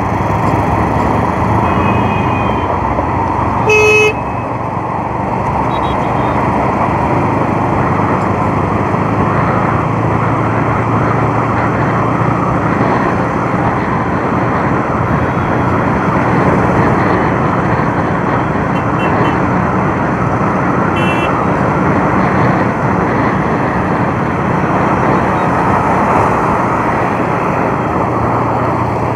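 Bajaj Avenger motorcycle running steadily at riding speed, with steady road noise. A short, loud vehicle horn beep sounds about four seconds in, and fainter horn toots come twice more, once near the start and once about two-thirds through.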